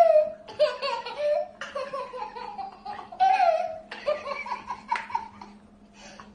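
A baby's high-pitched belly laughter in repeated bursts, each a second or so long, dying down near the end.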